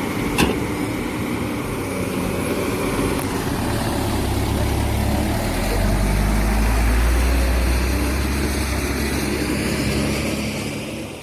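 Diesel engine of heavy sand-hauling machinery running, its low rumble swelling through the middle and fading out at the end. A single sharp click comes about half a second in.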